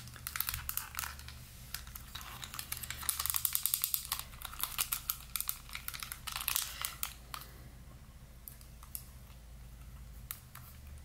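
Light, rapid clicking and crinkly rustling, with a dense run of clicks about three seconds in and another cluster a little after the middle.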